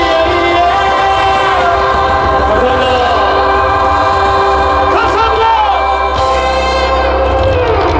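Live pop music with singing: voices sliding through runs over sustained band chords, held loud and steady, with falling vocal slides about five seconds in and again near the end.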